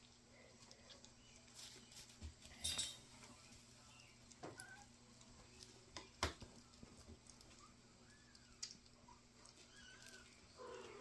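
Near silence with faint clicks and taps from five-week-old kittens eating, and a few faint, short kitten mews.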